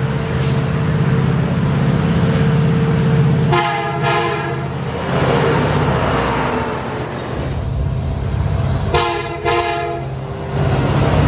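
Diesel locomotive air horn sounding one long blast, then two short blasts near the end, over the steady low rumble of the locomotive's engine.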